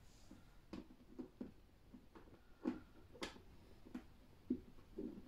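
Faint, irregular small clicks and taps of nuts being threaded by hand onto screws through a support plate, about ten in a few seconds.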